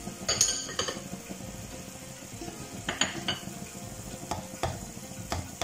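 Sugar syrup with a spoonful of ghee bubbling and sizzling steadily in a non-stick kadai while it is stirred. A spoon knocks and scrapes against the pan several times, in short clusters near the start, around the middle and near the end.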